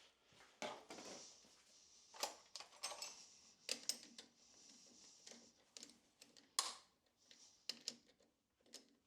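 Scattered light clicks and knocks of tools and metal parts being handled, with the sharpest knock about two-thirds of the way through. No machine is running.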